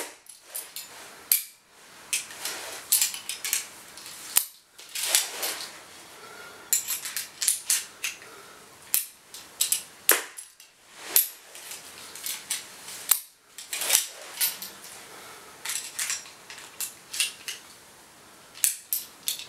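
A 50-pound pistol crossbow being handled and shot with nylon bolts: a string of sharp clicks, snaps and knocks, several of them louder than the rest.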